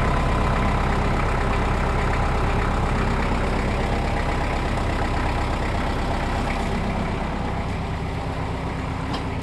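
Tractor engine idling steadily while its front loader holds the lifted Jeep body tub.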